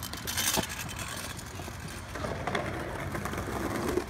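Skateboard wheels rolling over a concrete skate park surface in a steady rumble, growing somewhat louder in the second half as the board comes closer, with a sharp click about half a second in.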